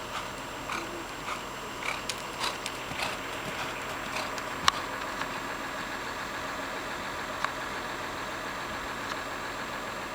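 A horse's hooves on the arena ground, soft thuds about two a second for the first few seconds, over a steady rushing background noise; a couple of sharp clicks come later.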